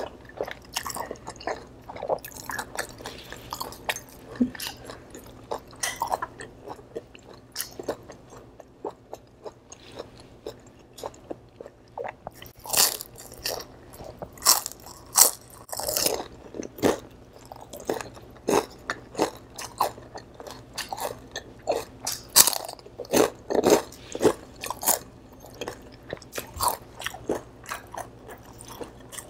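A person chewing and biting crispy deep-fried pork: many short, sharp crunches and crackles. The crunches are loudest and most frequent in the second half.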